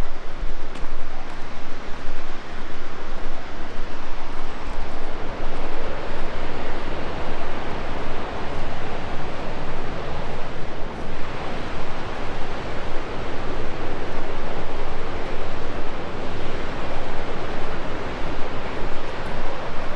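Steady, loud rush of fast-flowing river water in a rocky gorge.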